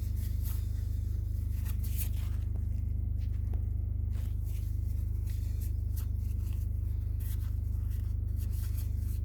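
Steady low hum with faint, scattered small clicks and scrapes of plastic window-switch parts being handled and pushed together.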